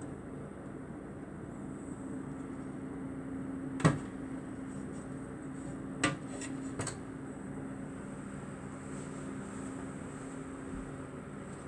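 Three short hard knocks, the loudest about four seconds in and two lighter ones around six and seven seconds, over a steady low hum.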